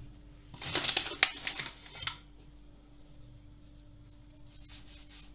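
Hands working soft dough on a silicone pastry mat: a burst of rustling and patting lasting about a second and a half near the start as flour is dusted over the dough, then only faint rubbing.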